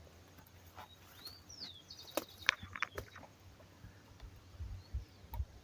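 Faint outdoor quiet with a few short bird chirps, scattered sharp clicks and soft low bumps.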